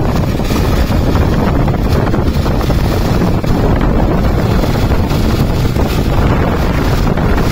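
Steady wind buffeting the microphone over the engine and road noise of an open-sided passenger vehicle driving along a concrete road.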